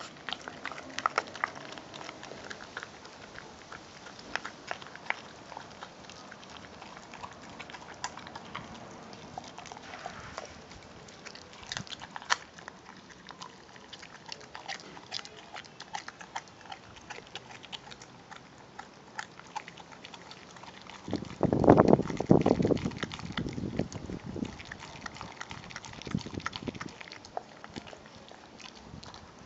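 American Pit Bull Terrier chewing and gnawing a raw meaty bone, with irregular wet clicks and crunches. It gets louder for a couple of seconds about three quarters of the way through.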